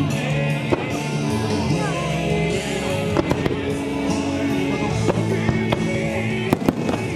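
Fireworks going off over music with long held notes: scattered sharp bangs, two in quick succession near the end.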